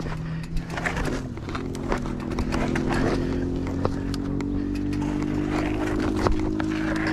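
Shoes scuffing and stepping on loose rock and dirt while a mountain bike knocks and clicks as it is walked down a steep rocky trail. A few sharper knocks stand out, and a steady low hum runs underneath.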